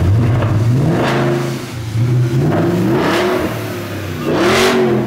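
Volkswagen Touareg V8 running straight-piped, with no exhaust, just after starting: it is revved three times, the pitch climbing and falling back each time, and the last blip is the loudest.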